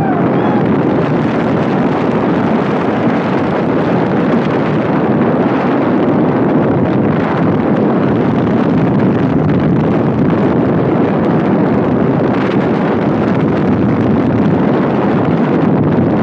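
Loud, steady wind rush buffeting the microphone of a front-seat rider on the ArieForce One steel roller coaster as the train runs at speed through its elements.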